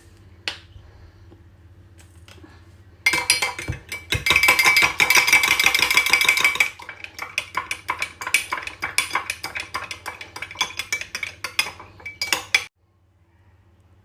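A metal spoon stirring briskly in a container, clinking rapidly against its sides. After a few separate clinks, the clinking becomes fast and continuous about three seconds in, is loudest for a few seconds, then carries on lighter and stops abruptly near the end.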